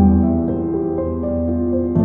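iPhone ringtone playing: a soft keyboard melody over a held bass note, with a new chord struck at the start and again at the end.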